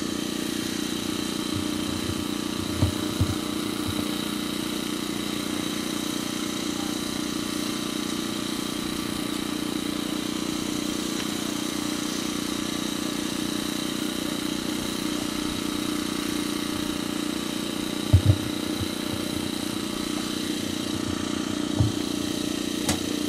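A steady engine hum made of several constant tones, broken by a few short low thumps about 3 and 18 seconds in.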